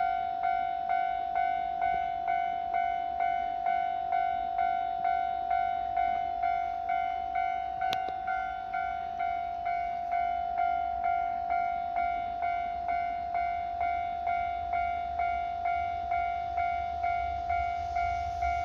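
Japanese railway level-crossing warning bell ringing, a pitched electronic clang repeating about twice a second, each strike fading quickly. Near the end the low rumble of an approaching train rises under it.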